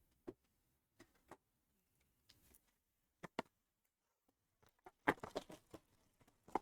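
Faint scattered clicks and taps of sports card boxes and cards being handled, with a quick run of clicks about five seconds in.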